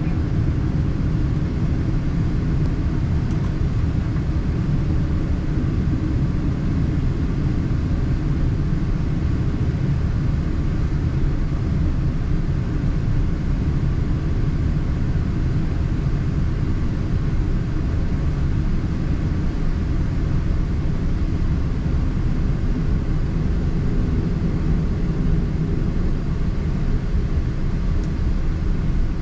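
Steady cabin rumble of a Boeing 777-300ER taxiing: its GE90 engines at taxi power and its wheels rolling on the taxiway, heard from inside the cabin.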